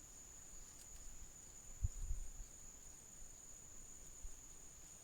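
Insects chirring steadily in one continuous high-pitched tone, with a fainter pulsing tone above it. A brief low thump comes about two seconds in.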